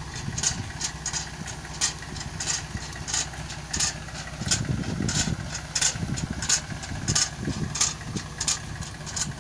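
A mulching paper (plastic mulch film) laying machine at work: an engine runs steadily while a sharp click repeats about every two-thirds of a second.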